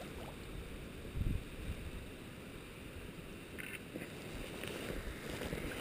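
Steady rush of a flowing creek with low wind rumble on the camera microphone, and one dull thump about a second in.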